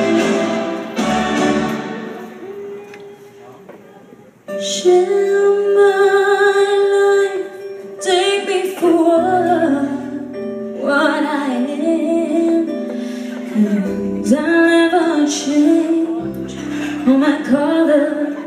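A woman singing with long held, wavering notes over instrumental accompaniment. The opening notes die away over the first four seconds, and her voice comes in loudly about four and a half seconds in.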